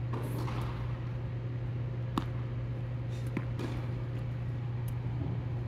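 Tennis rally: sharp knocks of racket strikes and ball bounces a second or so apart over a steady low hum.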